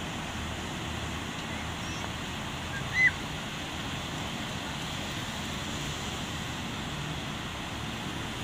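Ocean surf breaking on a sandy beach: a steady wash of waves. About three seconds in, one short high chirp stands out above it.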